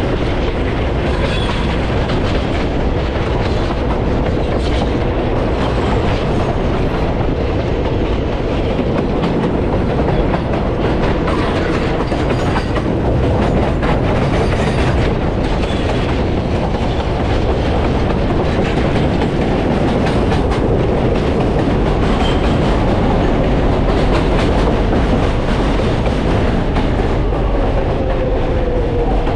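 New York subway L train car running between stations: a steady rumble of wheels on rail with clicking over the rail joints and a faint motor whine that drops in pitch near the end.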